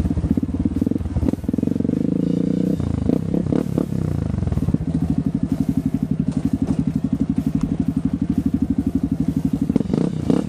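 Dirt bike engine running at low revs with a steady, rapid, even pulse, broken by a few knocks and a less regular stretch about three to four seconds in.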